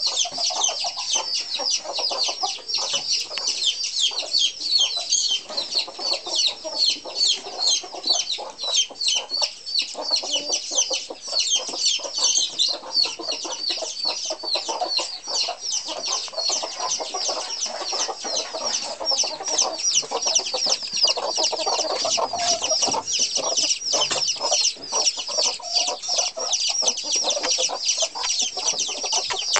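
Bantam chicks peeping continuously in rapid, falling high chirps, with bantam hens clucking lower underneath.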